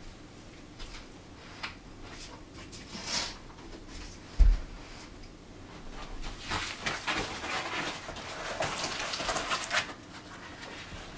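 Handling of a cardboard shipping box: a dull low thump about four seconds in, then several seconds of rustling and scraping of cardboard and packing paper as the box is opened.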